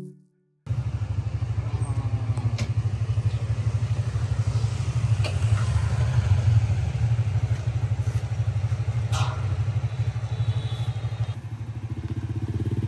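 A vehicle engine running steadily with a fast, even pulse, a few sharp clicks over it; the engine note rises near the end.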